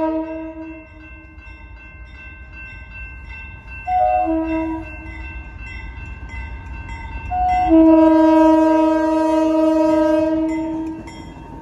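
Diesel locomotive's air horn sounding a chord of several tones at a grade crossing: a long blast dies away, a short blast follows about four seconds in, then a long blast holds for about three seconds, the close of the standard long-long-short-long crossing signal. Beneath it is the low, steady rumble of the approaching locomotive.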